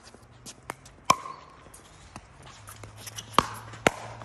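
Pickleball paddles striking the plastic ball during a rally: three sharp pocks, one about a second in and two close together near the end as the players volley at the net, with fainter taps between.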